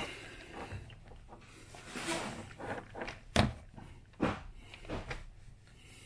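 Plastic parts of a floor fan clicking and knocking as they are handled and fitted onto the metal motor shaft through the wire guard; the sharpest click comes a little past halfway, with two lighter knocks soon after.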